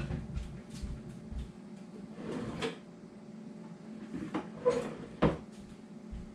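A few knocks and clunks of someone off-camera fetching things in a kitchen, like a cupboard door or drawer being opened and shut, with a short clatter a couple of seconds in and the two loudest knocks about half a second apart past the middle.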